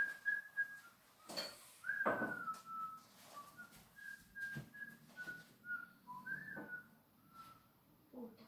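A person whistling a short tune in separate high notes, one or two of them sliding down, with a few light knocks and clatters in between.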